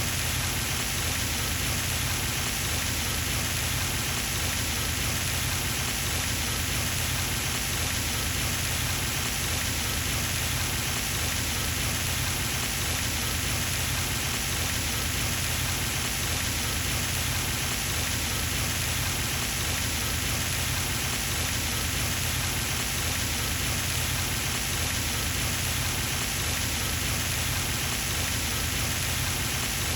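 Pond fountain's water spray falling back onto the pond surface in a steady, unbroken splashing hiss, like constant rain.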